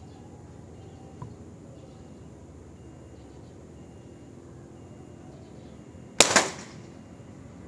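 Sharp Tiger Long air rifle firing a single shot about six seconds in: one sharp crack with a brief tail.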